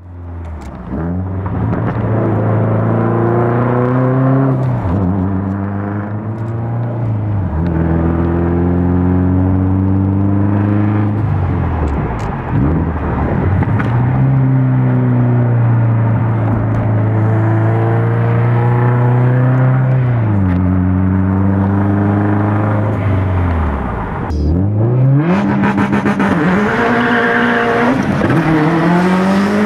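Turbocharged flat-four engine of a 500-wheel-horsepower Subaru WRX STI, revved and held at steady revs several times, falling back between holds. Near the end the revs drop low and then climb steadily as the car launches.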